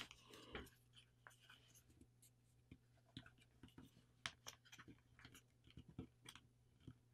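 Faint, scattered crinkles and small taps of a sheet of paper being folded and creased by hand, over near silence with a faint low hum.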